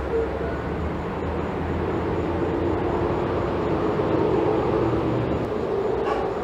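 Steady outdoor background rumble of distant engine noise, swelling slightly in the middle and easing off again.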